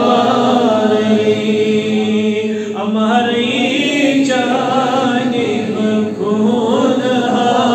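A man's voice chanting in a melodic style with long-held, slowly bending notes, delivering an Islamic religious recitation into a microphone.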